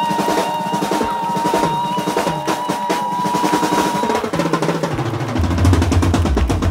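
Live rock band playing loud, with rapid drum hits and a long held high note. The note stops about four seconds in, and a heavy bass comes in a moment later.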